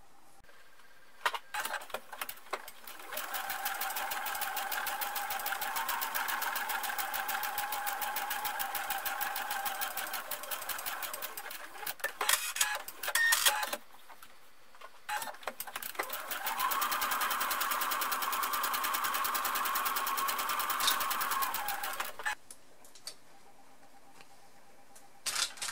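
Electric sewing machine stitching two straight seams through two layers of cotton, one run of several seconds, a pause with a few clicks, then a second run of several seconds. Light clicks of fabric and pin handling come before and after the runs.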